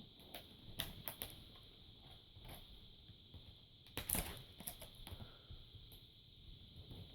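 Scattered light plastic clicks and taps from a computer keyboard being handled or typed on, with a loudest cluster about four seconds in.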